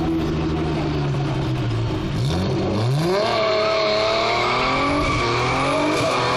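Drift car's engine holding a steady note, then revved up sharply twice about two seconds in and held high with a wavering pitch as the car drifts through the hairpin. Tyres squeal under the engine from about three seconds in.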